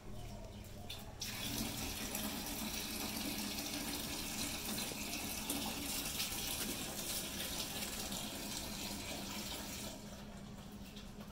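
Steady rush of running water. It starts suddenly about a second in, holds evenly, and eases off slightly near the end.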